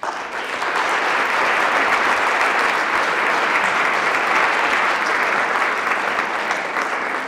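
Audience applauding, starting all at once as the speech ends and holding steady.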